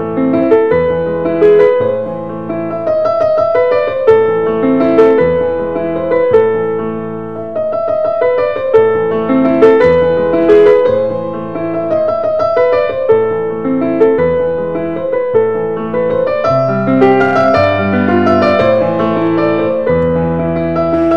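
Background piano music: a melody played over held low notes.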